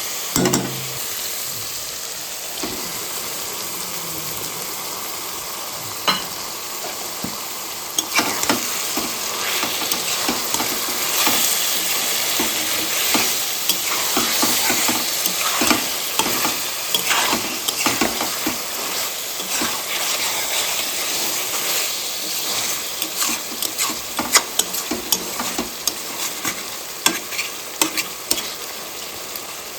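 Chicken gizzards sizzling in a pan of hot oil and masala while a spatula stirs them, scraping against the pan many times. The stirring gets busier about a third of the way in.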